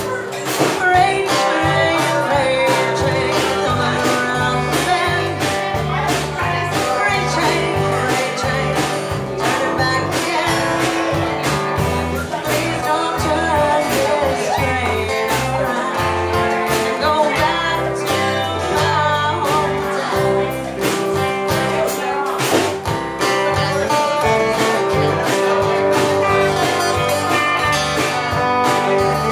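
A live roots-rock band playing a country-style song: strummed acoustic guitar and other guitars over a steady beat, with singing.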